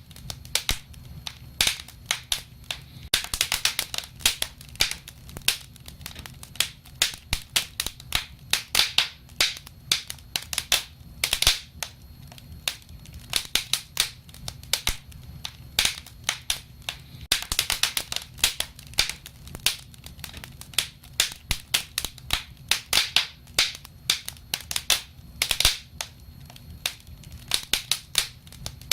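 Wood fire crackling: a dense run of irregular sharp pops and snaps, thickening into quick clusters every few seconds, over a low steady rumble.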